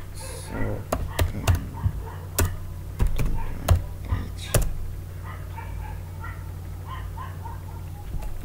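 Computer keyboard keystrokes: about nine sharp clicks in the first five seconds as a line of code is typed and entered, over a steady low hum.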